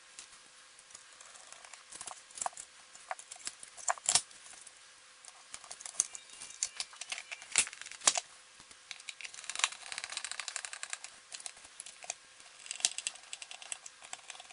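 Plastic clicks and knocks as the Fluke 87 multimeter's circuit board and case halves are fitted back together, then quick runs of fine ticking twice near the end as the case screws are turned in with a small screwdriver.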